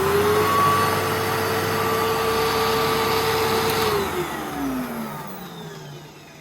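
10-amp vacuum cleaner motor switched on briefly: it runs at a steady high whine, then about four seconds in is shut off and winds down with a falling pitch and fading level. Its motor bearings are starting to sound rough.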